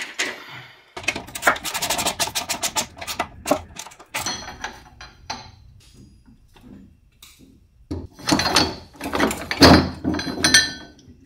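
Ratchet wrench clicking rapidly for a few seconds on the strut-mount bolts, then irregular metal clanks and knocks near the end as a coil-spring strut held in spring compressors is worked up into the wheel well.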